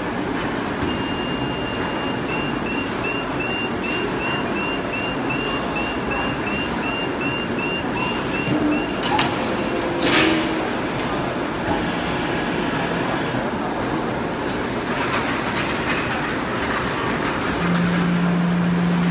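Steady din of woodworking machinery running on a veneer factory floor. A rapid run of short high chirps lasts several seconds, two sharp knocks come about nine and ten seconds in, and a steady low hum starts near the end.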